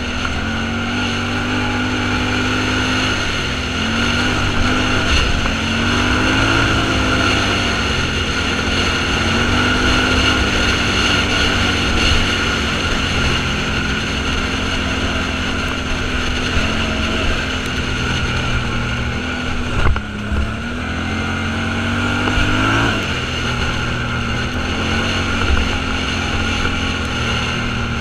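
Off-road vehicle engine running under way, its pitch rising and falling repeatedly as it speeds up and eases off, with a short knock about twenty seconds in.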